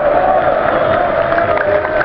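A large crowd of football supporters singing a chant in unison, loud and continuous.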